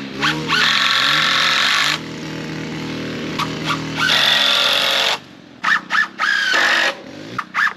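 A power tool running in two loud bursts, the first about two seconds long and the second about a second, with a lower steady sound between them and short choppy bursts near the end.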